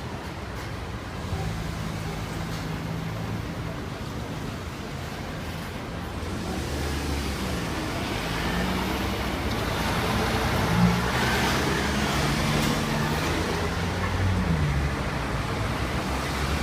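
Road traffic: motor vehicle engines running, with a few engines rising and falling in pitch as they rev, getting louder about halfway through.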